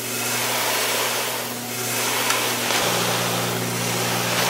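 Coffee roasting machinery running: a steady whooshing blower noise over a low electrical hum, the hum changing about three seconds in.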